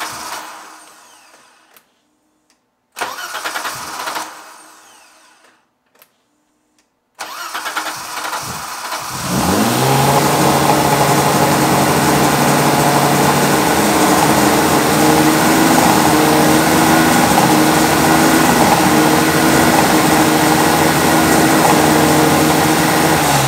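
BMW E30 inline-six with individual throttle bodies starting up: after two short bursts of engine sound that die away, it cranks and catches, revs up about 9 seconds in and holds a steady fast idle of about 3,000 rpm. The idle is high because the throttle bodies are not closing at rest; the throttle cable catches on the fuel rail and holds them slightly open.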